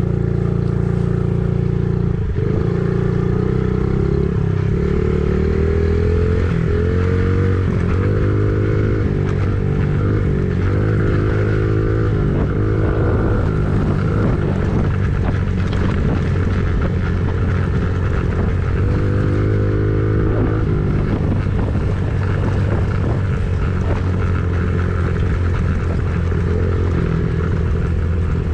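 An engine running steadily, its pitch rising and falling several times as it speeds up and slows down.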